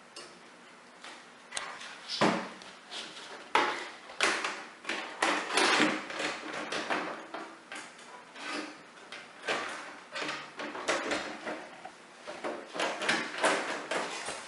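Side panels being fitted onto a metal computer case: irregular clacks, knocks and sliding scrapes of sheet metal.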